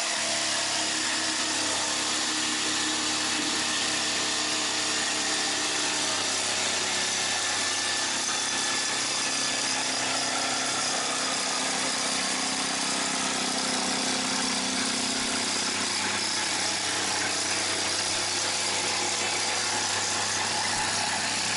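Ryobi CJ-250 jigsaw running steadily as it cuts its way down through plywood, fed by its own weight along a guide rail.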